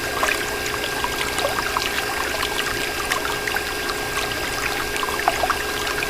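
Water pouring and splashing steadily, with many small drip and bubble sounds. A faint steady tone runs underneath.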